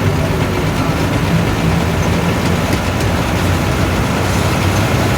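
Maruti car's engine running steadily with road noise, a constant low hum with no change in pitch.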